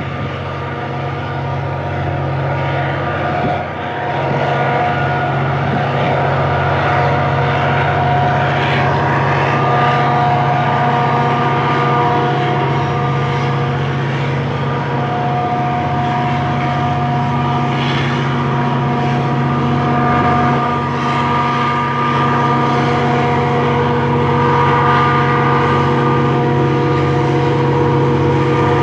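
Diesel freight locomotive running as it hauls a long freight train: a steady engine drone with several held whining tones that come and go.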